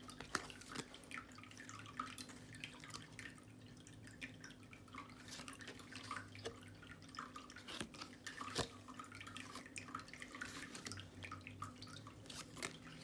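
Linen-finish pocket tarot cards being handled and flipped through, giving faint scattered clicks and soft rustles, with a couple of sharper taps near the start and about two-thirds of the way in. A steady faint low hum sits underneath.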